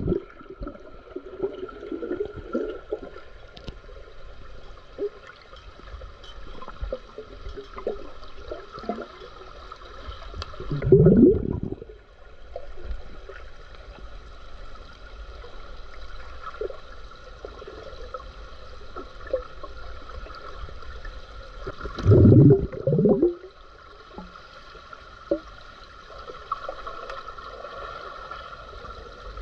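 Underwater gurgling of air bubbles in a swimming pool over a steady hum, with two louder rushes of bubbles about eleven seconds in and again about twenty-two seconds in.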